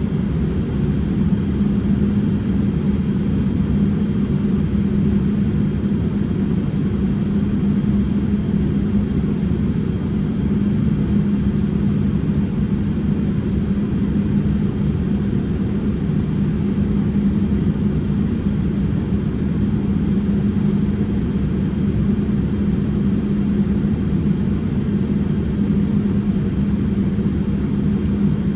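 Steady cabin noise of a Boeing 787-8 in flight, heard from a window seat beside the wing: a deep, even rumble of engine and airflow with a constant low hum, from the GEnx-1B turbofans.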